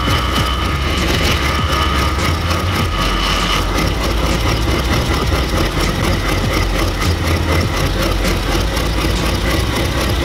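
Old Chevrolet pickup truck's engine idling steadily as the truck creeps slowly forward, with a deep, even rumble.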